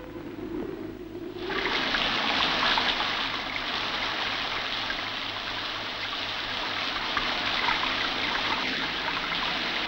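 Shower water spraying and splashing steadily, starting about a second and a half in.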